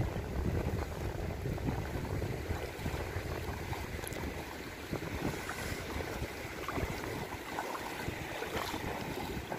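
Wind buffeting the microphone over a steady wash of shallow sea water, with light splashing from feet wading through it.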